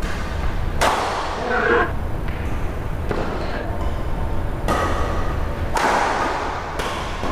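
Badminton rackets striking a shuttlecock in a rally, several sharp hits one to two seconds apart, each ringing briefly in a large hall.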